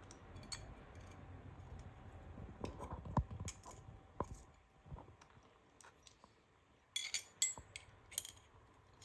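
Quiet handling of small metal and plastic rifle parts on a workbench: scattered light clicks and taps, with a brief cluster of sharper metallic clinks about seven seconds in.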